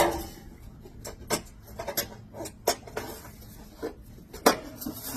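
Sheet-metal round duct pipe's snap-lock seam being pressed shut by hand: a series of sharp, irregular metal clicks, the loudest at the start.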